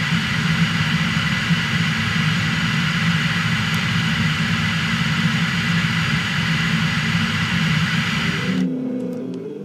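Steady rushing airflow over an unpowered glider, picked up by its onboard camera, with a deep hum under it and a faint thin tone above. Near the end it drops away to a quieter sound with shifting low tones.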